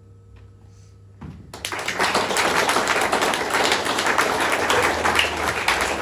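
Audience applauding. The clapping swells in about a second and a half in, after the faint ring of the last note dies away.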